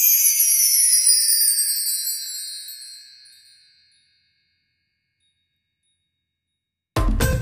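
A shimmering chime sound effect: several high tones falling in pitch together, fading away over about three seconds. Silence follows, and background music with a sitar starts right at the end.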